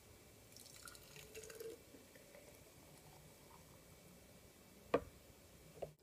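Thick blended smoothie pouring from a blender jar into a glass mason jar, a faint wet dripping patter for the first couple of seconds. A sharp knock comes about five seconds in, with a softer one just before the end.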